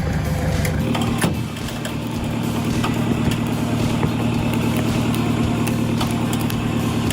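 Toyota Hilux pickup's engine running steadily at an even pitch, with scattered sharp clicks and knocks.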